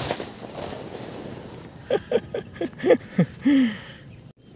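A small homemade firecracker's bang dying away at the start. About two seconds in, a quick run of about six short calls falling in pitch, then one longer, lower call, from an animal.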